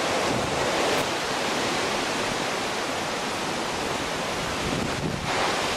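Steady, even rushing noise of a storm's wind and rain, with a brief dip about five seconds in.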